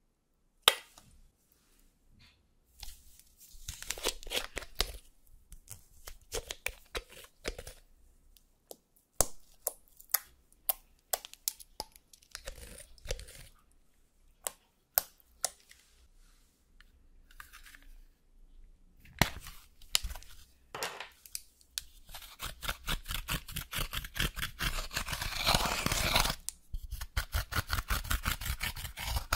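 Scattered small clicks, taps and squelches as cosmetic ingredients are squeezed and dropped into a glass dish. About two-thirds of the way in, a fast, rhythmic crunching and scratching starts and grows louder: pressed highlighter powder being broken up in its plastic pan with a pointed tool.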